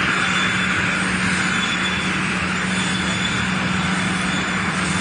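Spiral boiling trough (screw-type precooker) running: a perforated screw turns meatballs through hot water. It makes a steady, continuous machine noise, an even hiss over a constant low hum.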